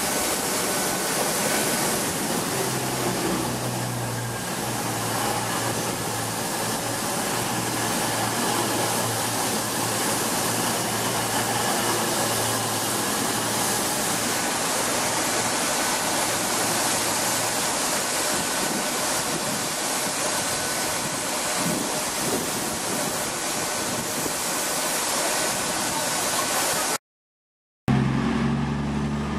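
Cross Country Class 220 Voyager diesel-electric multiple unit running into the platform and drawing to a stand, its underfloor Cummins diesel engines humming under a steady rush of train noise. After a brief dropout near the end, the engines hum again as the unit idles at the platform.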